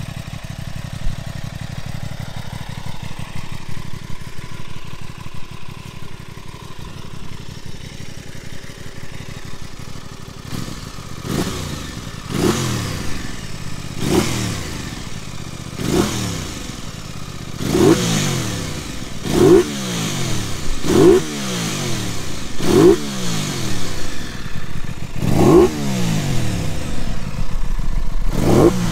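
Aprilia Tuono 660's parallel-twin engine idling steadily. From about ten seconds in it is revved in about ten quick throttle blips, each rising and dropping back, with an induction roar.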